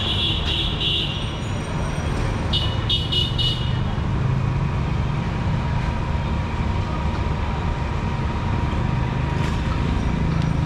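Steady rumble of street traffic, with a high-pitched vehicle horn sounding for about a second at the start and then three short toots about two and a half seconds in.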